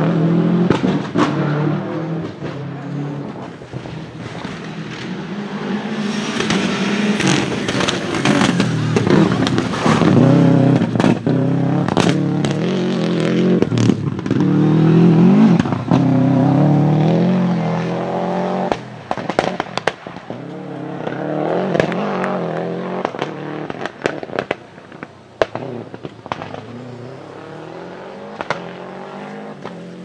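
Subaru Impreza 555 Group A rally car's 2.0-litre turbocharged boxer engine revving hard up and down through gear changes, with many sharp anti-lag backfires popping and banging. The engine sound fades away toward the end as the car drives off.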